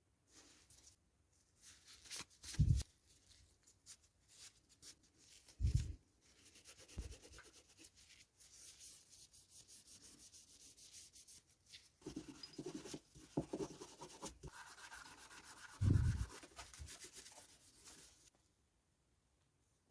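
Hand work on metal parts: irregular rubbing and scraping, with a run of quick scratchy strokes in the middle and three dull knocks, about three, six and sixteen seconds in.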